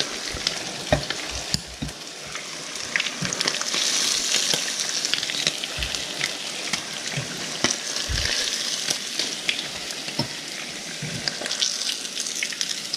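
Hot grease sizzling and crackling steadily in a frying pan, with occasional light knocks.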